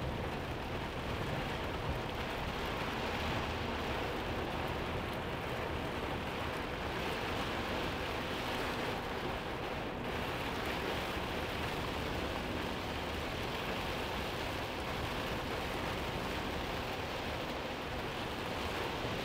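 Heavy rain beating on a moving truck's cab, heard from inside as a steady, even hiss, with the truck's low running noise beneath it.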